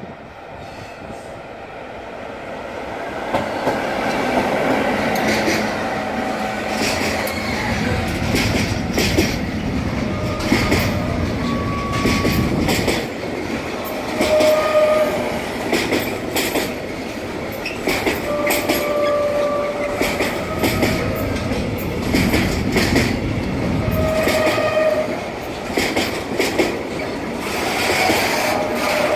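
Siemens Vectron electric locomotive and a long freight train of semi-trailers on pocket wagons passing close by. The sound grows louder over the first few seconds as the train nears, then settles into a steady rumble of wheels with rapid irregular clicks over the rail joints. Short squealing tones break in several times.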